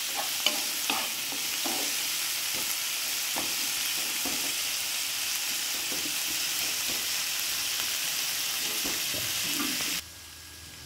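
Onion and tomato masala frying in oil in a nonstick pan, sizzling steadily while a wooden spatula stirs and scrapes it with small knocks against the pan. The sizzle drops away abruptly near the end.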